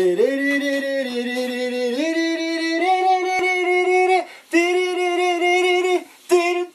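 A single voice singing long held notes that step up in pitch twice. It breaks off briefly about four seconds in, comes back with another long note, and turns to short clipped notes near the end.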